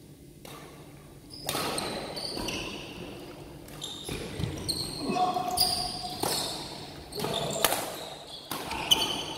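Badminton play in an echoing sports hall: shoes squeaking on the court floor and sharp racket hits on the shuttlecock, two of them standing out late on, a little over a second apart.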